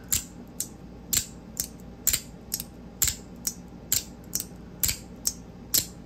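CP3 magnetic fidget slider being slid back and forth by hand. It gives a sharp click about twice a second as its magnets snap the slider into place, over a dozen clicks in all.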